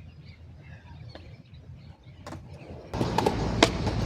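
Skateboard wheels rolling on concrete, starting suddenly about three seconds in, with a sharp clack of the board shortly after; before that only faint ticks over a low outdoor rumble.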